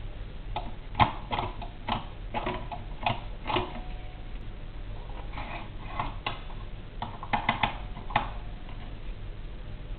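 A New American No. 5 typewriter, circa 1906, being typed on: an irregular run of sharp key clacks that pauses briefly midway and stops about eight seconds in.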